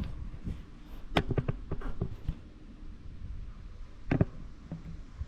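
Camera being handled and set in position: a run of short knocks and clicks about a second in, and one louder knock near the end.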